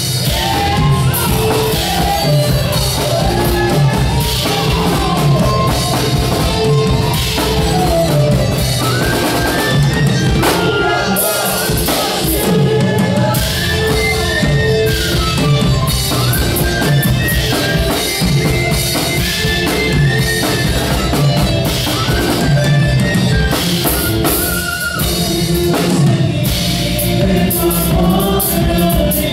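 Live Andean folk band music: strummed charangos and acoustic guitars over a drum kit, with men singing the melody.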